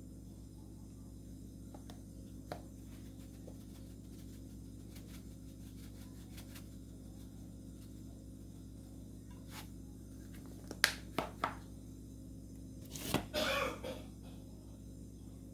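Spice shaker containers being handled over a bowl of flour: three sharp plastic clicks about eleven seconds in, then a brief rattling shake, over a steady low hum.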